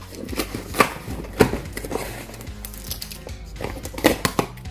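Packing tape and cardboard box flaps being ripped open by hand: a series of short, sharp tearing and rustling noises, loudest at about one and a half seconds and again around four seconds. Quiet background music plays underneath.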